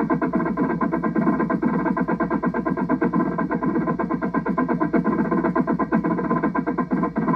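Drum corps drumline of snare drums, tenor drums and bass drums playing a fast, dense cadence, with rapid strokes packed closely together throughout.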